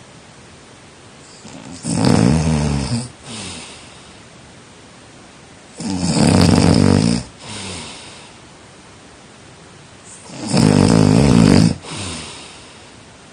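A person snoring: three loud, rattling snores on the in-breath, about four seconds apart, each followed by a shorter, softer breath out.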